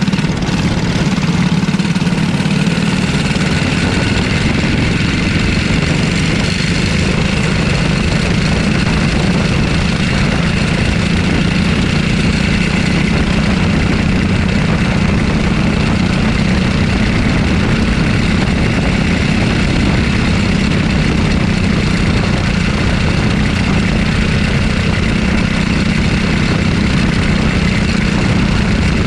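Racing kart engine running hard and steadily at near-constant pitch as the kart laps the track, heard up close from on board the kart.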